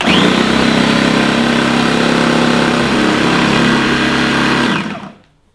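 Food processor motor switched on and running at full speed, grinding soaked macadamia nuts, walnuts, onion and celery into a thick paste. It stops near the end and spins down.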